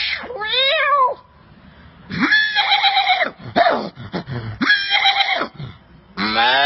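A run of separate animal calls with short pauses between them. One call with a quavering pitch ends about a second in, three or four more follow in the middle, and another begins near the end.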